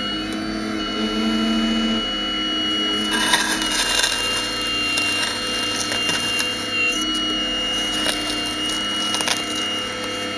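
Radio-controlled Hitachi 870 scale model excavator running: a steady whine from its hydraulic drive that shifts in pitch a couple of times as the boom and bucket move, with light clicks and scraping as the bucket digs into the soil.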